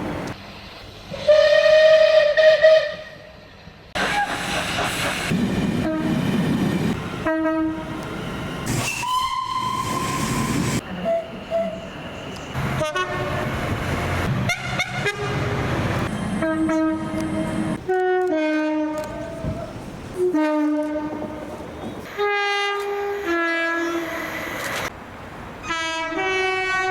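A rapid string of UK train horn blasts, cut one after another from different trains. Many are two-tone horns sounding a higher note then a lower one, and a few are single higher notes. The loudest blast comes about a second in, and train running noise fills the gaps between horns.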